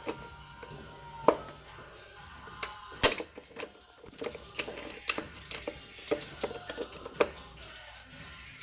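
Metal tools clicking, clacking and scraping against a 700R4 transmission case while prying at a stubborn snap ring: irregular sharp metallic clicks, the loudest about three seconds in.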